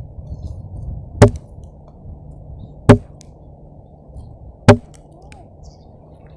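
Three sharp strikes of a hand tool, evenly spaced about 1.7 seconds apart, over a low steady rumble.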